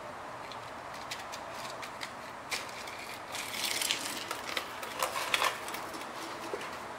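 Cardboard form being pulled off a plaster casting and handled, giving scattered light clicks and taps with a scratchy rustle of cardboard about three and a half seconds in.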